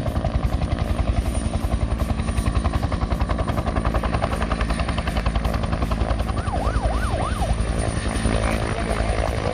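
Two-bladed helicopter flying low, its main rotor giving a steady, fast, rhythmic chop. A few brief high up-and-down whistling glides come through about two-thirds of the way in.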